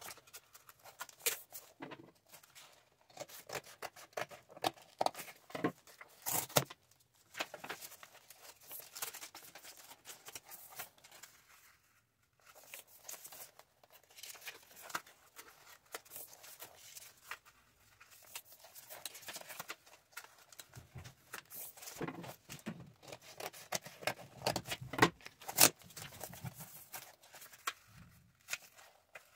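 Paper pages of a hardback book being folded and turned by hand: a stream of crisp rustles, creases and flicks, with a short pause about twelve seconds in.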